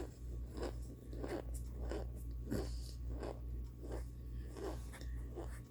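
A person crunching and chewing hard, chalky microwaved chunks of baked cornstarch and baby powder, with about ten crisp crunches at a steady pace. A low steady hum lies under them.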